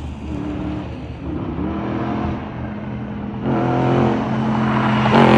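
Dodge Charger's 392 HEMI V8, breathing through a Mopar cold air intake, accelerating hard down the road. The engine note climbs in pitch twice, then gets much louder about three and a half seconds in and is loudest near the end.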